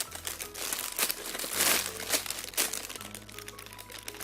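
Crinkling and rustling in repeated bursts as a squishy toy is handled, likely in its plastic wrapping, over soft background music with held notes.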